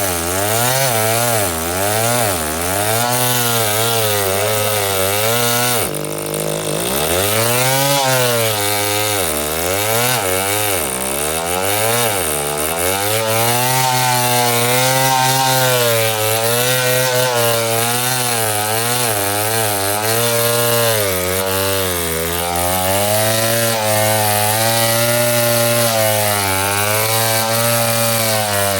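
Stihl 070 two-stroke chainsaw running at high revs while cutting wood, its pitch wavering up and down as the load of the cut changes, with a sharp drop in speed about six seconds in before it picks up again.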